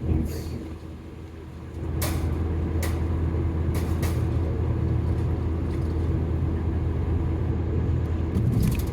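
Car cabin road and engine rumble that jumps markedly louder about two seconds in and then holds steady, with a few sharp clicks scattered through it.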